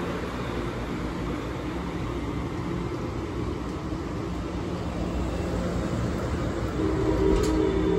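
Amtrak Pacific Surfliner bilevel passenger cars rolling past on the track, a steady rumble and hiss of wheels and running gear that swells a little near the end.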